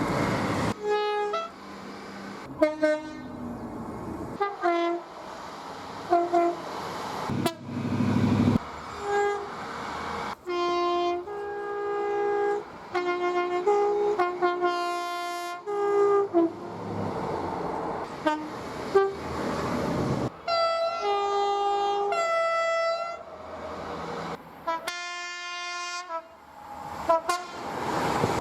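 Two-tone train horns sounding in a rapid series of short blasts, each a pair of notes played in turn or together, cut one straight after another. Trains rush past between some of the blasts.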